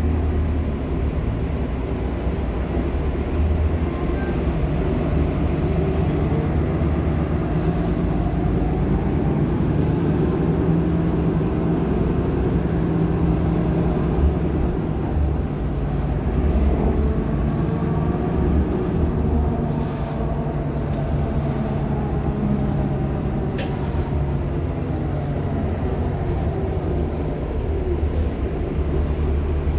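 Nova Bus LFSA articulated hybrid bus in motion, its Cummins ISL9 diesel and Allison H 50 EP hybrid drive giving a steady low rumble. Whining tones glide up and down through the middle, with a faint high thin whine above.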